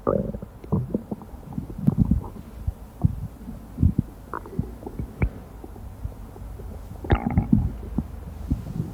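Amplified human stomach rumbling: irregular low gurgles and small pops, with a louder, higher gurgle about seven seconds in.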